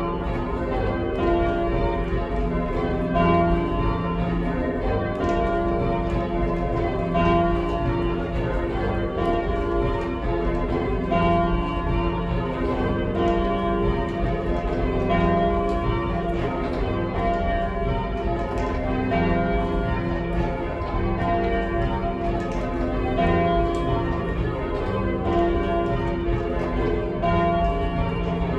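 Church bells being change-rung by a band pulling bell ropes: a steady, unbroken run of overlapping bell strokes whose order keeps shifting.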